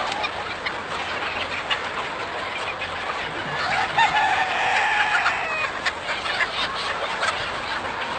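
A large flock of chickens clucking and squawking in a dense, steady din. One longer, drawn-out call stands out about four seconds in.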